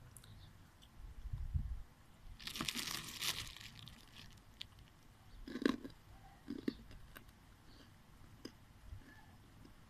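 Hard, half-popped roasted corn kernels crackling: a low bump, then a dense burst of crackles lasting about a second starting about two and a half seconds in, followed by a few single sharp cracks.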